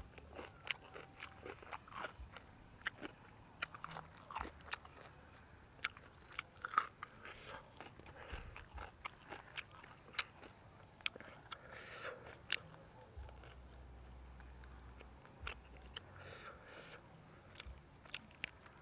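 A person chewing and biting into roast duck, with irregular small crunches and clicks.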